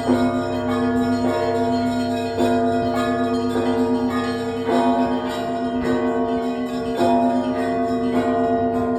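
Russian Orthodox bells of the Trinity-Sergius Lavra's main bell tower rung together in a festive peal. Several bells are struck over and over, the loudest strokes coming about once a second, over the steady ringing of the deeper bells.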